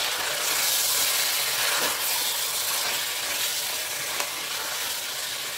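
Mutton and ground spices sizzling steadily in hot oil in an open pressure cooker, with the scrape and stir of a spatula through the meat: the masala being fried (bhuna) before yoghurt and water go in.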